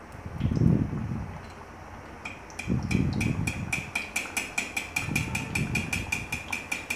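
Dal puri frying in hot soybean oil in an iron wok, with a few dull swells as a perforated steel skimmer works the oil. From about two seconds in, a rapid, very regular clicking of about five a second joins it.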